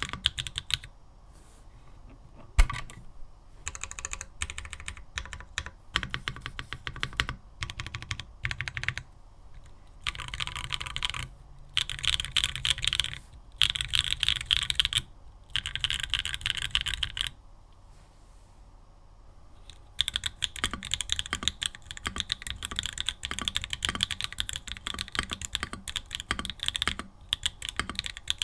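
Typing on a Mode Tempo 60% mechanical keyboard with no foam inside, in bursts of fast keystrokes broken by short pauses, with one louder knock a few seconds in. Up to a lull about two-thirds of the way through, it is Mode keycaps on Tomorrow switches; after the lull, steady typing with ABS keycaps on Obscura switches.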